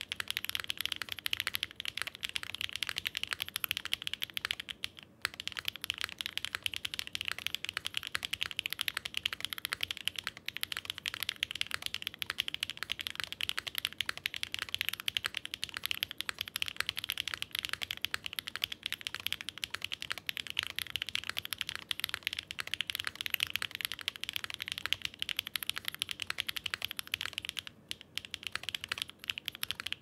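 Continuous fast typing on a Daring Run Flip6p custom mechanical keyboard (a 60% board with numpad, gasket-mounted on a polycarbonate plate): a dense stream of key clacks. There is a brief pause about five seconds in and another near the end.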